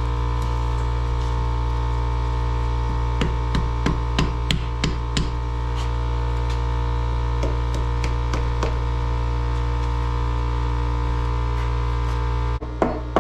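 Sharp clicks and knocks as a part is worked loose from a Ford 460 big-block V8: a quick cluster of them a few seconds in, a few more later, and a louder knock near the end, over a steady electrical hum.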